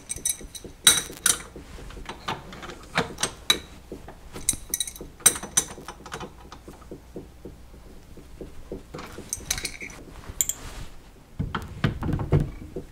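Hand tools clicking and clinking on the steel spindle of a Taig mill as the R8 spindle's drawbar nut is tightened further to compress the Belleville washers, with a run of quick light ticks midway and handling knocks near the end.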